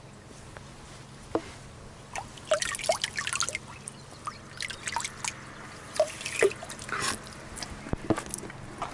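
Water dripping and splashing from a small metal dragon spout into a stone shrine purification basin, in irregular drops that come in quick little clusters.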